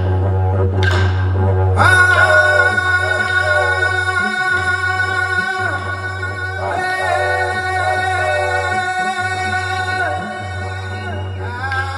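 Live band music over a PA: a steady didgeridoo drone runs underneath while a man sings long, held notes that begin about two seconds in. A couple of sharp strikes sound in the first second or so.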